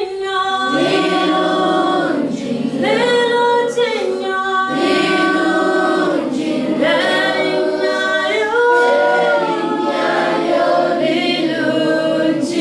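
A group of children singing together unaccompanied, in phrases a couple of seconds long.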